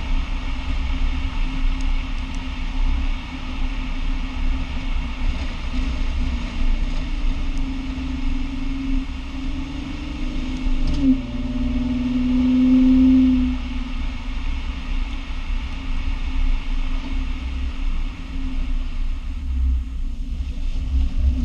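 Lexus IS250 driving: steady road rumble and a low hum, which rises in pitch and swells louder for a couple of seconds around the middle. The car has a noise from the left rear that was traced to a broken slide pin on the left rear brake caliper.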